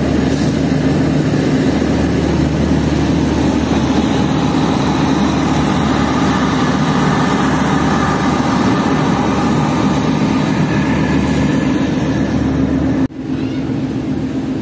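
Diesel generator set of a Pakistan Railways power van running with a steady, loud drone as the coaching rake rolls slowly past. The sound cuts off abruptly about thirteen seconds in, leaving a quieter engine drone.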